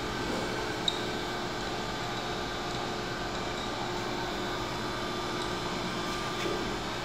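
Tormach PSG 612 surface grinder running, a steady machine hum with a few steady tones, and one faint click about a second in.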